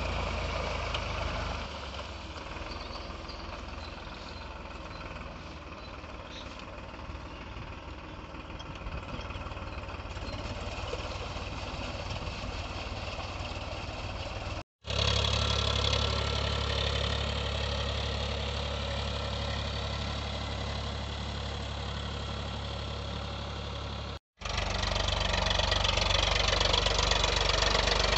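Powertrac Euro 47 tractor's diesel engine running steadily under load as it pulls a puddler and leveler through a flooded paddy field. The sound drops out briefly twice, about 15 and 24 seconds in, and the engine is a little louder after each break.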